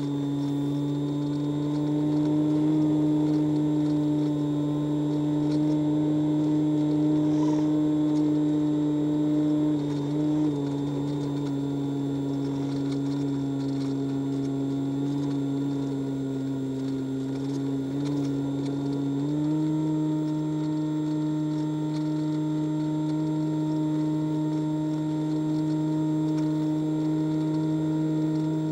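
Electric motor and pusher propeller of a Multiplex EasyStar model plane droning steadily in flight, heard from on board. The pitch dips slightly about a third of the way through and steps up again about two thirds in as the throttle changes.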